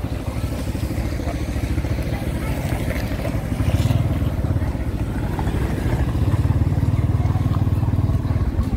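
Small motorcycle's engine running as it rides along the street, getting louder about four seconds in and again from about six seconds as it speeds up.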